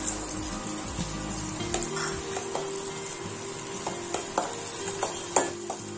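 Cashews frying in sizzling butter in a stainless steel kadai, stirred with a steel spoon that clinks and scrapes against the pan now and then.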